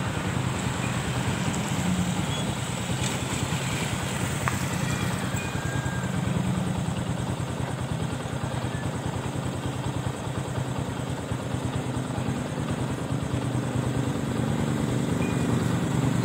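Small motor vehicle engine running steadily with a fast, even pulse, getting louder near the end.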